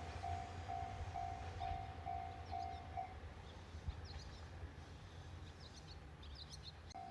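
A level crossing alarm ringing a single repeated tone about twice a second, stopping about three seconds in and starting again near the end. Beneath it runs the low steady rumble of an idling train, and birds chirp in the second half.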